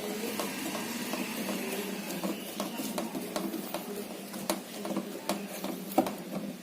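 Small electric motor of a cordless screwdriver running steadily while driving a screw, with scattered clicks.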